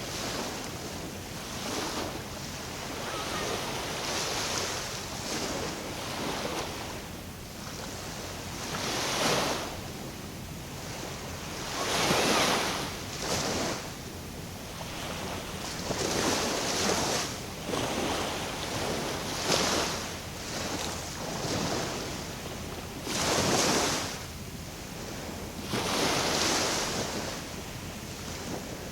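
Small waves washing and splashing at the water's edge in uneven surges every few seconds, over a steady hiss of wind on the microphone.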